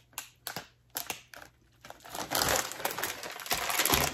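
Plastic wrapper of an Oreo cookie package crinkling as it is handled and opened: a few light clicks at first, then about two seconds of dense, continuous crinkling.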